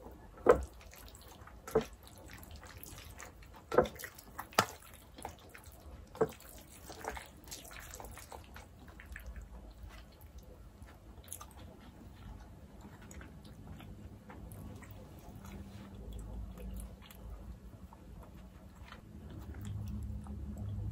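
Close-up eating sounds of jajangmyeon noodles in black bean sauce: wet mouth smacks and chewing, with a run of sharp wet clicks over the first several seconds, then quieter chewing that grows a little louder near the end.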